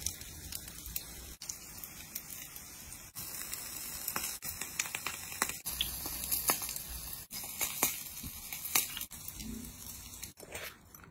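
Food-preparation sounds in short cuts: a hiss of coarse salt pouring onto aluminium foil, then crackling and rustling with scattered sharp clicks as the salt bed and foil are handled.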